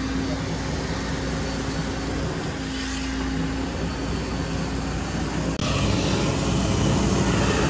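Concrete being sprayed onto a pool shell: the steady drone of the pumping equipment's engine under the hiss of the spray from the hose nozzle. It gets louder and hissier about five and a half seconds in.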